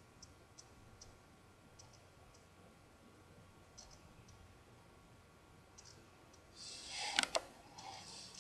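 Small cosmetic items being handled: faint scattered clicks at first, then about two thirds of the way in a rustle with a couple of sharp clicks as she reaches for and picks up the next product.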